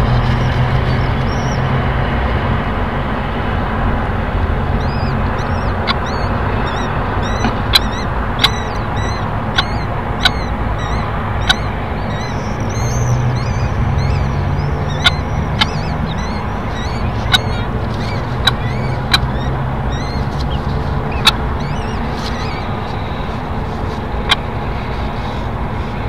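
Steady traffic rumble, with thin high cheeping from a newly hatched common kestrel chick through the middle stretch, and a scattering of sharp single clicks.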